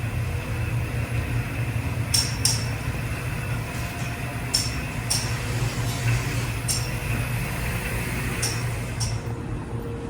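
Light metallic clinks, mostly in pairs about half a second apart and coming every couple of seconds, over a steady low hum.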